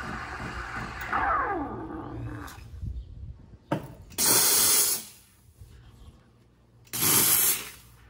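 Saeco SE50 steam wand hissing as it froths milk in a steel pitcher, with a falling tone about a second in as the steam dies away. About four seconds in and again near the end, two short loud blasts of steam as the wand is purged.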